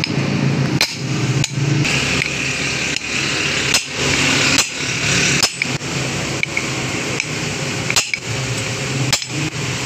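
Hammer blows on metal: several sharp knocks at uneven intervals over a steady low hum.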